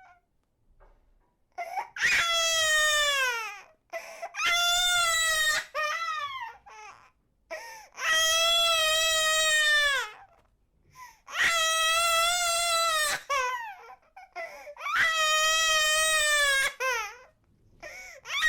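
An infant crying in five long wails, each about two seconds long and dropping in pitch at the end, with short catches of breath between them.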